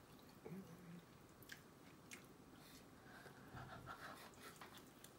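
Faint chewing of shrimp, with a few soft mouth clicks and small crunches; otherwise near silence.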